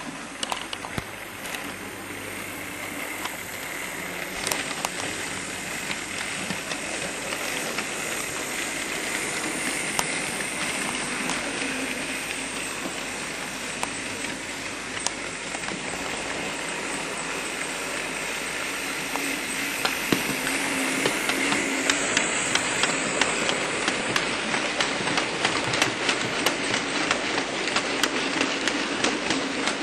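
Model railway 8F steam locomotive running along the track with its train of wagons: a steady whirr of motor and wheels that grows louder, with a quick run of clicks over the rail joints in the last several seconds.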